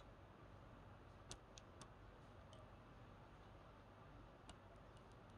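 Near silence: room tone with a few faint clicks from a circuit board and tweezers being handled, three in quick succession about a second and a half in and another near the end.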